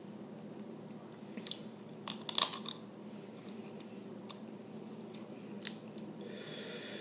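Small seafood shells being cracked and picked apart by hand, with chewing: a loud cluster of crunching cracks about two seconds in, scattered small clicks, and a soft hissing rustle near the end.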